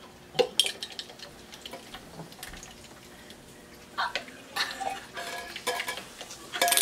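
Glass and plastic drinkware clinking and tapping as a drink is poured from a marble-stoppered glass soda bottle into a plastic cup. Scattered sharp clicks, one louder clink about half a second in, and a quicker run of clinks in the second half.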